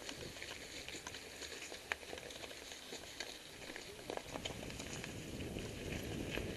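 Mountain bike rolling over a dirt and leaf-litter trail: steady tyre noise with scattered small clicks and rattles from the bike, and a low rumble that grows in the second half.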